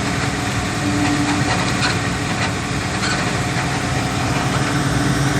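A vehicle engine running steadily, with a few light rattles.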